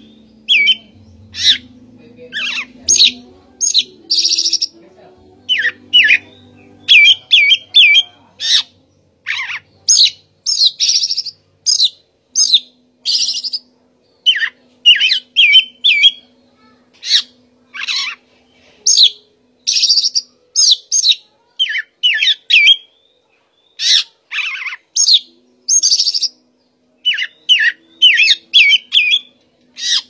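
Male oriental magpie-robin (Copsychus saularis) singing a varied song of short, loud phrases: clear whistled notes, quick runs of three or four falling notes, and harsh scratchy notes, with brief pauses between phrases.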